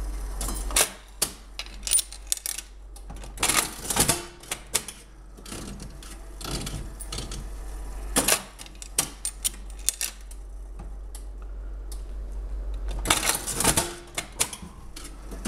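Mills 'The Champ' mechanical slot machine being played: a run of sharp metallic clicks and clacks from the coin escalator, handle and reels, with louder clattering bursts about every four seconds.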